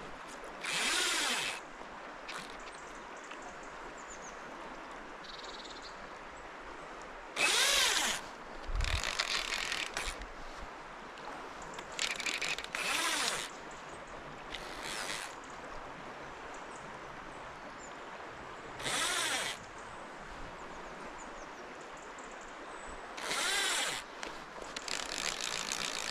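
Fly reel's click-and-pawl ratchet buzzing in short bursts, about eight of them, as a hooked fish is played on the rod. A steady rush of river water runs beneath.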